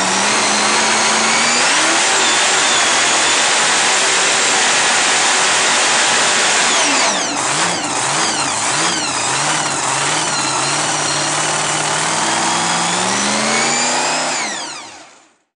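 Drag-racing car engine running loud and steady, then blipped up and down several times from about halfway, with a last rise in revs before the sound cuts off near the end.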